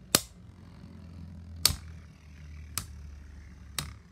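Two Beyblade Burst spinning tops, Cyclone Ragnarok and Genesis Valkyrie, clashing as they spin in a plastic stadium: four sharp clacks about a second apart, over a low steady hum.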